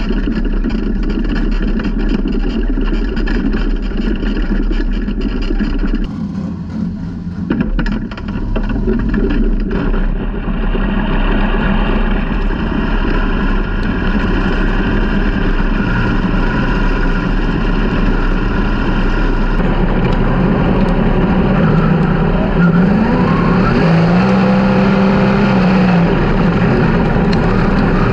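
360 sprint car V8 engines running hard in a dirt track race, the sound easing off briefly about six seconds in and then building again, with rises and falls in engine pitch near the end.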